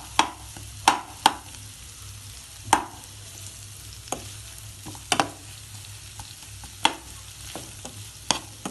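Onions and peppers sizzling in a frying pan while being stirred, with a utensil knocking sharply against the pan about eight times at irregular intervals.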